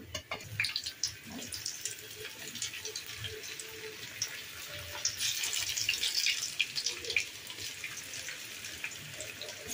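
Besan badi dumplings deep-frying in hot oil in a kadhai: a steady sizzle full of fine crackling, strongest from about five seconds in.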